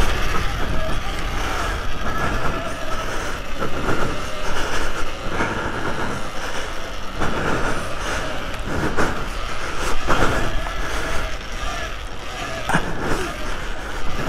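Electric off-road bike being ridden on a dirt track: a motor whine that rises and falls in pitch over a steady rush of wind and tyre noise, with several sharp knocks as it goes over bumps.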